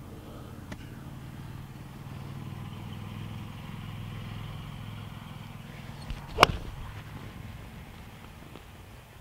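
A golf club strikes a teed golf ball once, a single sharp impact about six seconds in, over a steady low background rumble.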